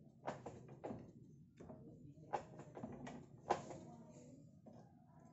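Light metal clicks and knocks, about seven at irregular intervals, as a pipe clamp's sliding jaw is handled and worked onto a half-inch steel pipe.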